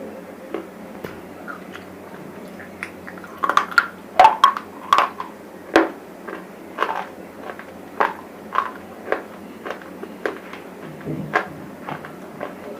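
Close-up mouth crunching of brittle dried bar chips: sharp crackling bites, a quick loud run of crunches about a third of the way in, then single chewing crunches about every half second to second.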